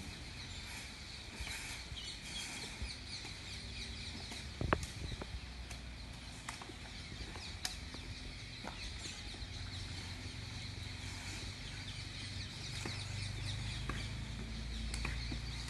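Outdoor ambience of birds chirping, with scattered sharp clicks and snaps of leaves and twigs as men rake and handle cut branches. The loudest snap comes about a third of the way in. A low rumble builds near the end.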